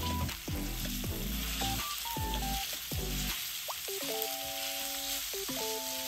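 Ground pork sizzling in a frying pan as it is stirred and broken up with a wooden spatula, a steady hiss throughout, with light background music playing over it.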